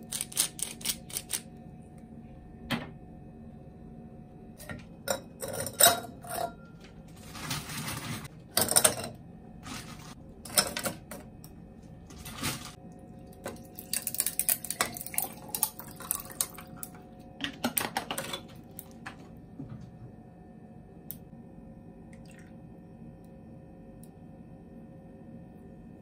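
Kitchen clatter of dishes and utensils on a wooden counter, then a quick run of clinks as ice cubes drop into a tall glass tumbler.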